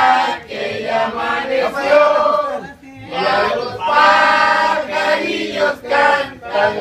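A small group of men and women singing together in chorus, a birthday song over a cake with lit candles, in sung phrases with short breaks for breath.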